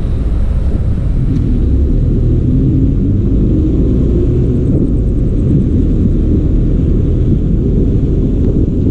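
Steady low rumble of wind buffeting a bicycle-mounted camera's microphone at riding speed, mixed with the engine of a city bus running close ahead.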